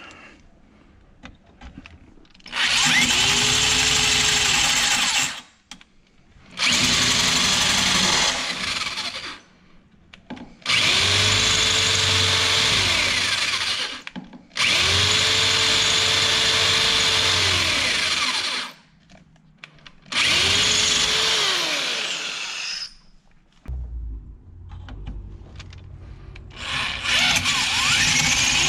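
Power drill boring into hard steel in repeated runs of three to four seconds, six times. Each time the motor spins up, holds, then winds down as it cuts out. The stopping every few seconds is the drill's own cut-out, which the user takes for overheat protection while the bit struggles to get through the steel.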